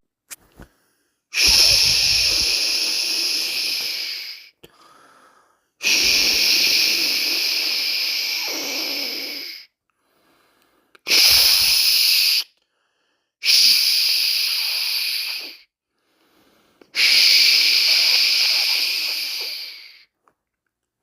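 A person shushing, a long breathy 'shhh' made five times with short pauses for breath. Each shush lasts one to four seconds and trails off as the breath runs out. This is the soothing white-noise sound used to settle a baby to sleep.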